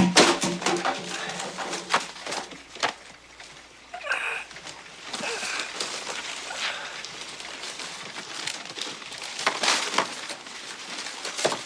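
Scattered knocks and clatters of debris falling and settling, with a short squeaky tone about four seconds in.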